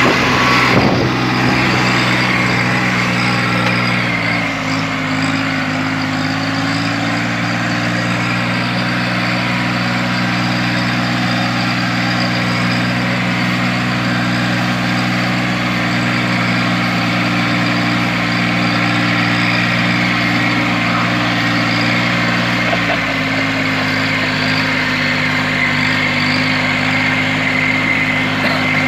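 Kubota 24 hp compact tractor's diesel engine running steadily as it works through heavy mud, its pitch rising a little about five seconds in and dropping back slightly later on. A few knocks sound in the first second.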